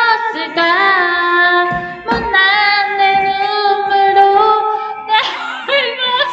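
A woman singing a slow Korean ballad in long, wavering held notes into a toy karaoke microphone, her voice and the backing track coming out of its built-in speaker. About five seconds in the singing turns rough and garbled as food is pushed into her mouth.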